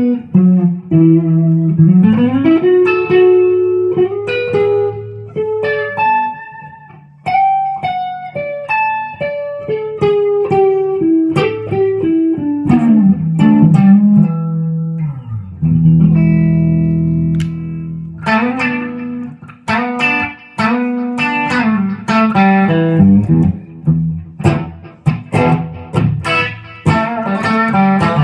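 Electric guitar, a 1996 Epiphone Les Paul Custom with Gibson 490 humbucking pickups, played as single-note lead lines with notes bent up and slid down. A chord rings for a couple of seconds about halfway through, then fast picked runs follow.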